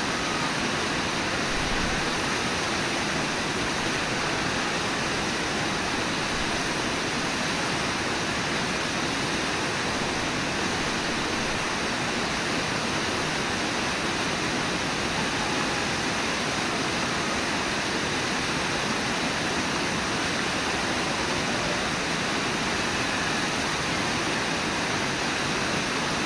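Brooks River whitewater rushing steadily: an even, unbroken rush of water noise.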